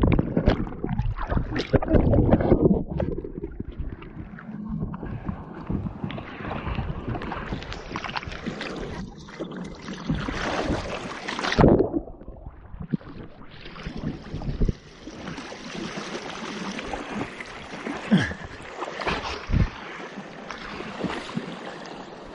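Water splashing and sloshing around a canoe on a fast-flowing river, with wind buffeting the microphone. It is heaviest in the first few seconds, with a few sharp splashes or knocks later on.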